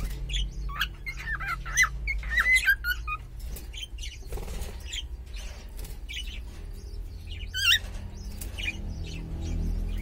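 Cockatiels chirping: short warbling calls with quick rising and falling notes, scattered through, with a sharper call a little before the end.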